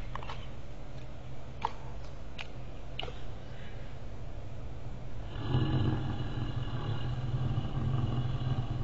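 Rottweiler eating from a steel bowl, a few sharp clicks in the first three seconds, then growling low and steadily from about five seconds in as it stands over the bowl with teeth bared: guarding its food.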